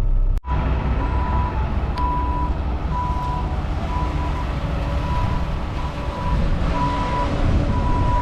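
Heavy truck backing up: its reversing alarm beeps about once a second over the steady low rumble of its diesel engine.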